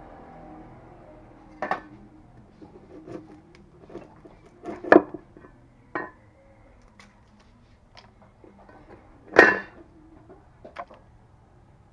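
A cleaver knocking on a wooden chopping board as roasted rattan shoots are split and peeled. There are a handful of separate sharp knocks, the loudest about five seconds in and again about nine and a half seconds in.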